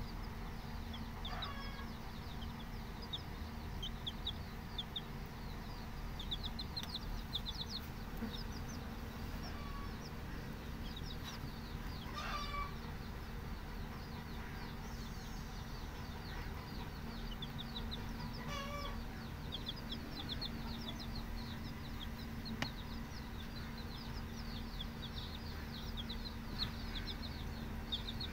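Baby chicks peeping: a steady run of short, high cheeps that fall in pitch, with a few louder calls now and then, over a low steady hum.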